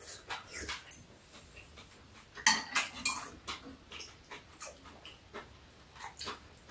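Metal chopsticks and spoons clicking against ceramic bowls and dishes while eating. Scattered light clinks, with a louder run of clatter about two and a half to three seconds in.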